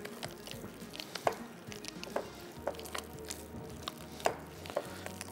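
Hands kneading soft yeast dough with butter in a bowl: quiet squishing, with a few short taps and knocks scattered through it.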